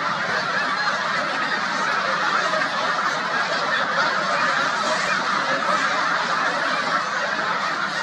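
A huge flock of snow geese calling all at once, a dense, steady din of overlapping honks with no single call standing out.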